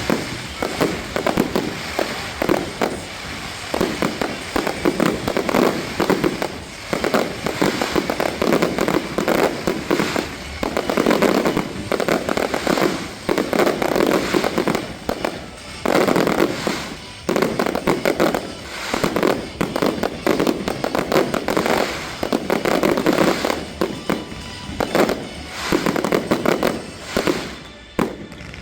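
Fireworks display: a dense run of shell bursts and crackling, coming in clusters every second or two, with a lull near the end.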